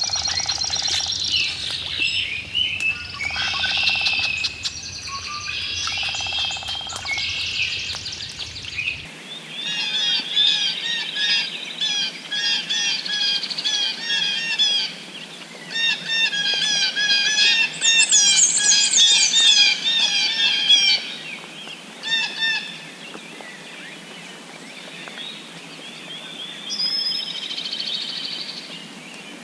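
Several wild birds singing and calling, with repeated chirps and trills. About nine seconds in the background changes to a different set of songs.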